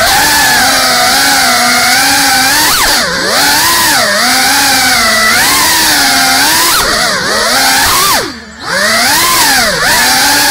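GEPRC Cinelog 35 cinewhoop's brushless motors and ducted propellers buzzing in a high whine that rises and falls in pitch with every throttle change. About eight seconds in, the throttle is chopped and the whine briefly drops away, then surges back up.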